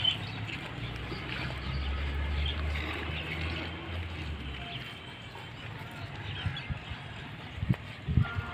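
Outdoor ambience of small birds chirping, with a low rumble swelling through the first half and a couple of dull thumps near the end.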